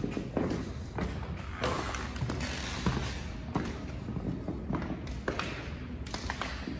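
Footsteps on a tiled floor with knocks from handling the camera: irregular soft thumps and taps from someone walking through the corridor.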